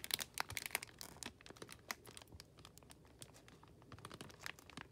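Plastic bag of kale greens crinkling as it is handled: a run of sharp crackles that thins out after the first second or so, with a few more near the end.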